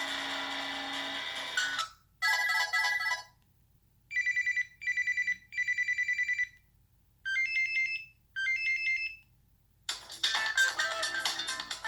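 Preloaded ringtones and alert tones of a Samsung Intensity III phone playing one after another: a musical ringtone cuts off just before 2 seconds in, then a short chime, three pulsing electronic ring bursts, two short rising alert tones, and a new musical ringtone starting about 10 seconds in, with silence between them.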